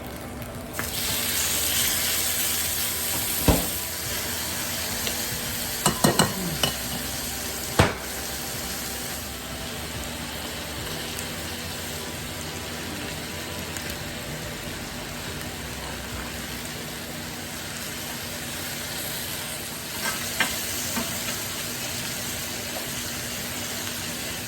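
Food sizzling in a hot stovetop cast iron pan: a steady frying hiss that gets louder about a second in, with a few sharp clicks and knocks of a utensil against the pan.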